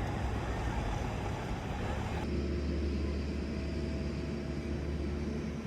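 Steady low rumbling outdoor noise. About two seconds in it changes abruptly: the higher hiss drops away and a steadier low rumble remains.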